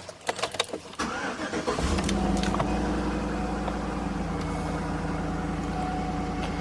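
Chevrolet Suburban engine being started: a few sharp clicks, the starter cranking about a second in, then the engine catching and settling into a steady idle.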